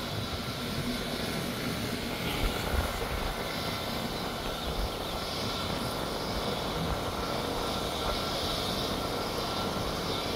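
Jet airliner's engines running at taxi power, a steady hum with a faint thin whine, mixed with wind noise buffeting the microphone.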